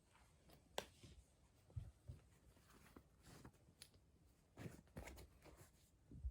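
Near silence with faint scattered taps and rustles, and a few slightly louder short knocks.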